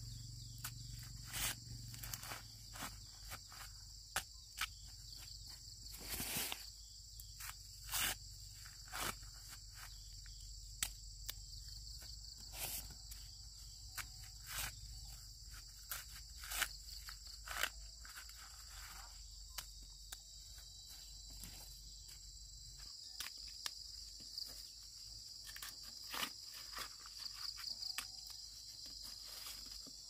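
Steady high-pitched insect chorus, with irregular sharp snaps and rustles over it.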